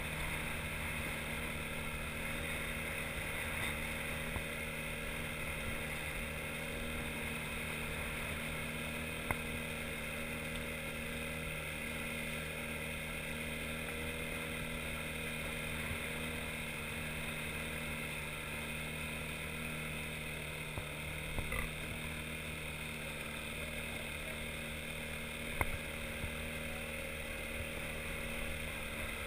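Outboard motor on an inflatable boat running steadily, with a few brief knocks.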